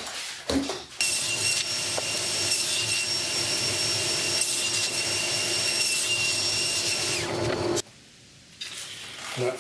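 Festool TKS 80 table saw running at speed and cutting through a thin board pushed across the blade on a crosscut sled: a steady whine with high tones over a noisy rush. It starts suddenly about a second in and stops abruptly shortly before the end.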